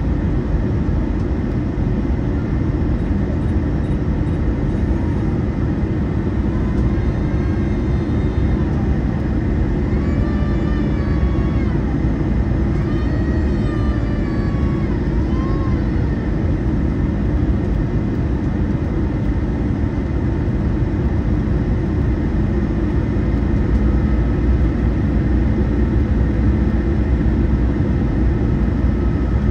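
Steady cabin noise inside an Airbus A320 descending on approach: the rumble of the engines and airflow, heard from a window seat beside the wing. Faint voices come through the noise between about seven and sixteen seconds in.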